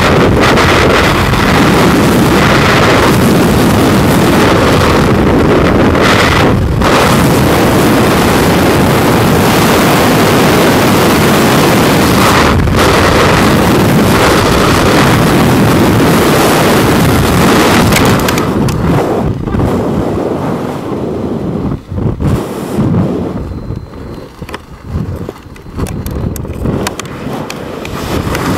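Loud, steady freefall wind rushing over a skydiver's helmet-camera microphone. About eighteen seconds in, it drops and turns gusty and uneven, with a few sharp knocks, as the parachute deploys and opens.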